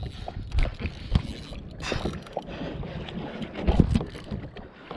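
Choppy water sloshing around a plastic kayak with wind buffeting the microphone, broken by scattered short knocks.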